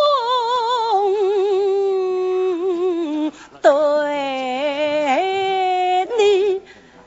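Woman singing a Suzhou pingtan (tanci) aria in long held notes with a wide, even vibrato, in two phrases broken by a short pause a little past three seconds.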